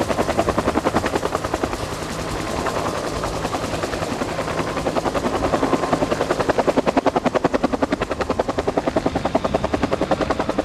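UH-1 Huey helicopter's two-blade main rotor beating in a fast, even rhythm of about ten beats a second, the characteristic Huey blade slap. The beat grows louder and sharper about six seconds in.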